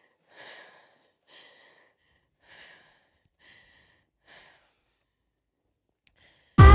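A woman's heavy, ragged breathing after shouting: about five breaths that grow fainter, then quiet. Loud music cuts in abruptly at the very end.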